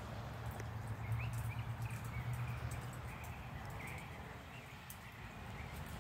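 Quiet outdoor ambience: a faint, steady low rumble, taken for a freight train still far off down the line, with a few faint bird chirps through the middle.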